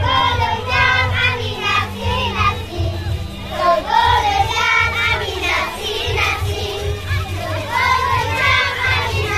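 Children's voices singing a song over amplified music with a heavy, pulsing bass.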